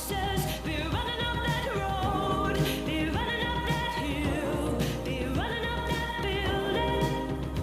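A song with a singing voice: a sustained, sliding vocal melody over instrumental backing with a light percussive beat.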